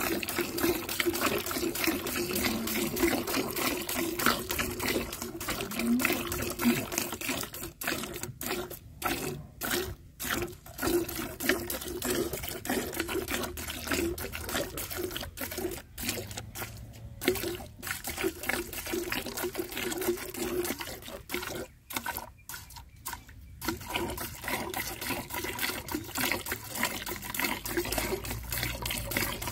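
Cow being milked by hand, milk squirting into a pail in quick rhythmic streams, pausing briefly twice.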